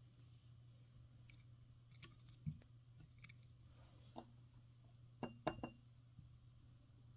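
Near silence: a steady low hum with a few faint, light clicks and taps, a small cluster of them near the end, like tableware being touched.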